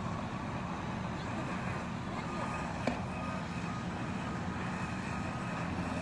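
Fire-truck engines idling with a steady low rumble, and one sharp click about three seconds in.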